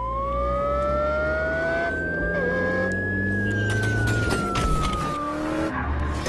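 Edited-in robot transformation sound effects: a long whine that rises for about three seconds and then slowly falls, over a low hum. In the second half comes a quick run of mechanical clicks and clanks as the robot changes shape.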